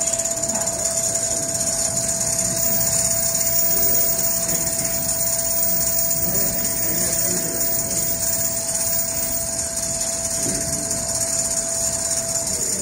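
Large-format automatic pattern sewing machine stitching a big padded headboard panel: fast, even needle stitching over a constant motor whine.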